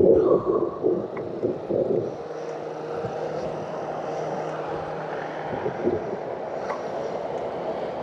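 Wind buffeting the microphone of a handlebar-mounted camera on a moving bicycle, over steady tyre and road noise. The buffeting is heavier in the first two seconds, then settles to a steady rush.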